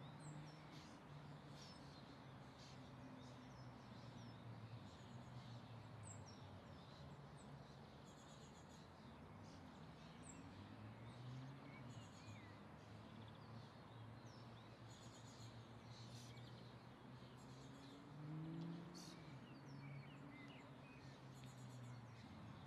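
Faint outdoor ambience: scattered small birds chirping over a low hum that slowly rises and falls in pitch.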